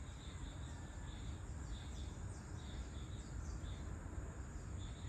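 Evening outdoor ambience: insects chirping in short high pulses at irregular intervals over a low steady rumble, with a few quick high descending chirps about midway.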